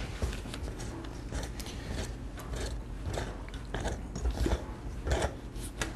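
Wing nut being unscrewed by hand from a metal air filter housing: irregular small clicks, crunches and scrapes of metal on metal, over a steady low hum.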